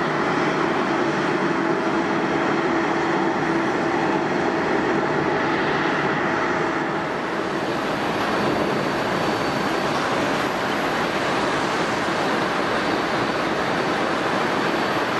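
Jet airliner engines running: a steady, loud noise with a low hum and a whine for the first seven seconds or so. It then turns into a more even rush, with a thin high whistle from about eight seconds in.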